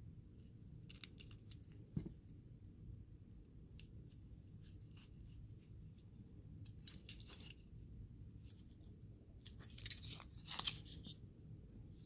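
Small plastic clicks and scrapes from handling and fitting parts on a plastic HO-scale model locomotive body. There is a sharp click about two seconds in and a denser run of clicking and scraping near the end, over a faint steady hum.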